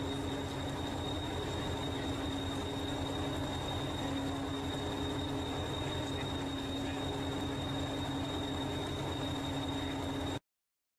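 Preserved Hastings diesel-electric multiple unit 1001 idling steadily at the platform: a constant low engine rumble with a steady hum and a thin high whine over it. The sound cuts off suddenly near the end.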